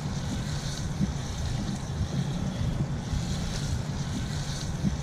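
Steady low rumble of wind buffeting the microphone, with a hiss over it that comes and goes.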